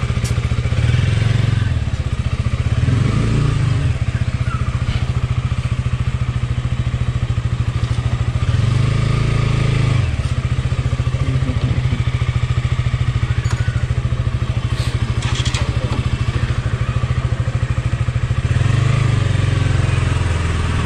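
KTM Duke 200's single-cylinder four-stroke engine running at idle with a steady pulsing beat. The engine note swells a few times as the throttle is opened, the last time near the end.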